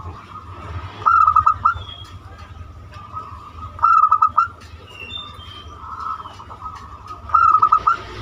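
Zebra dove (perkutut) cooing: three loud phrases, each a quick run of four or five clipped notes, about three seconds apart. Faint twittering of small birds between the phrases.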